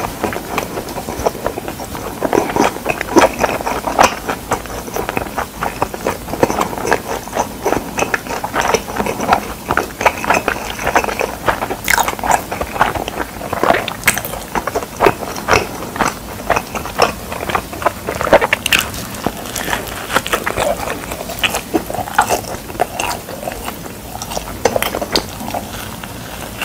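A person biting and chewing pizza close to a clip-on microphone: a continuous run of chewing with sharp crunchy clicks from the crust, and a fresh bite near the end.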